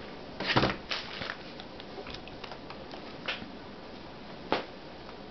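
Asus Eee PC netbooks being handled and shifted on a tabletop: a handful of separate knocks and small clicks. The loudest is a thump about half a second in, with lighter knocks near one second, a little after three seconds and about four and a half seconds in.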